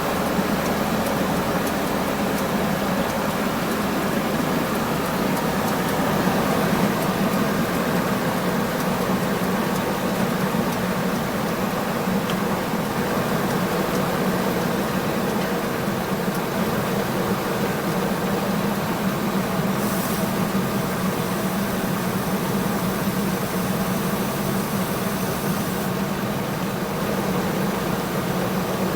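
Ford 5.4L V8 engine idling steadily, running after being rebuilt with a new intake manifold, spark plugs and cleaned injectors.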